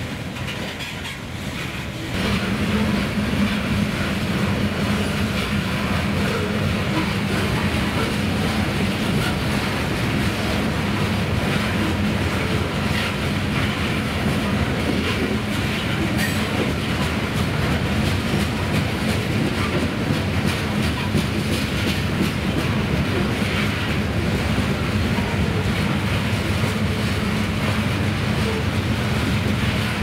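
Loaded coal hopper cars of a unit coal train rolling past at close range, a steady rumble of wheels on rail. It gets suddenly louder about two seconds in and then holds steady.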